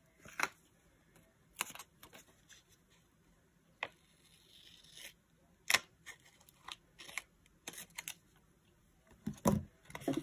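Paper stickers and planner pages being handled on a desk: scattered light clicks and taps, a soft rustle about four to five seconds in, and a couple of louder knocks near the end.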